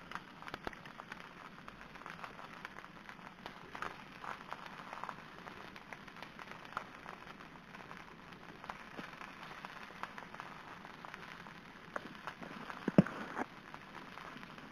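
Egg cooking in a banana-leaf wrap over heat: a steady soft sizzle and crackle, with scattered clicks of a metal spoon against the leaf and one sharp tap near the end.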